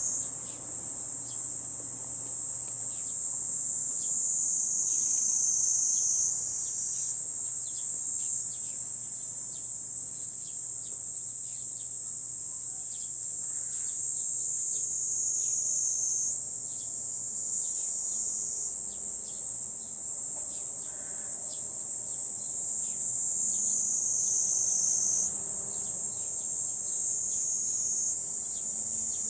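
A chorus of cicadas: a steady, high-pitched shrill that slowly sinks in pitch and jumps back up every several seconds.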